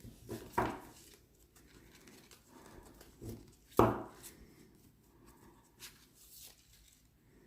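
A deck of tarot cards being handled and shuffled by hand, with soft card rustles and small ticks. Two brief, louder sounds stand out, about half a second in and just under four seconds in, the second the loudest.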